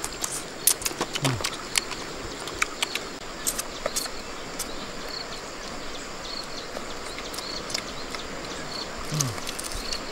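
Grilled crab shells cracking and crunching between fingers and teeth, a run of irregular sharp clicks and crackles. A steady high insect drone carries on underneath.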